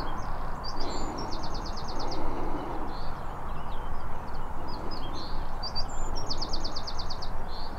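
A small songbird singing twice, each song a few chirps running into a quick, even trill, over a steady rush of wind noise on the microphone.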